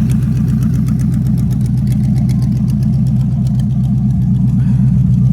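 392 Hemi V8 from a 1957 Chrysler Imperial, on dual four-barrel carburetors with open zoomie headers, idling steadily with loud, even exhaust pulses.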